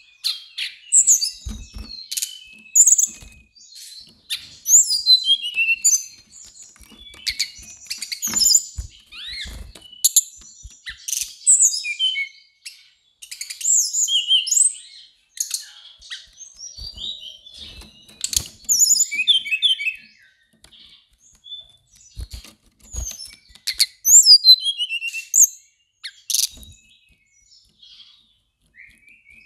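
Brown-chested jungle flycatcher singing in quick, varied phrases of high sliding notes, with short pauses between phrases, and a few soft thumps.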